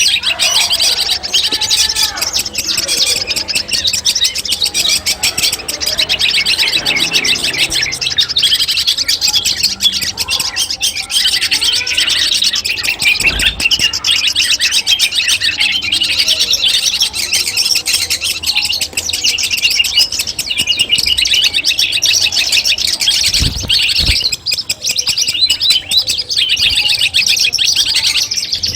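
Long-tailed shrike (cendet) singing a continuous, rapid, high-pitched chattering song without pause.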